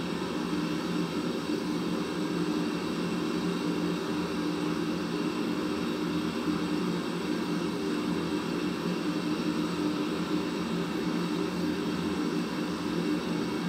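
Gas forge burner running with a steady, even roar, with no hammer blows.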